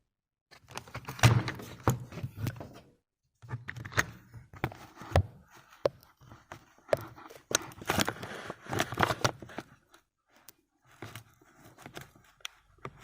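Close handling noise: irregular knocks, bumps and rustling as the camera is set down and propped up and the boxed packaging is moved, with short pauses about three and ten seconds in.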